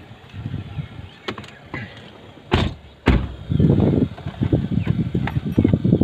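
Two sharp knocks about half a second apart inside a car, then an uneven low rumbling and bumping.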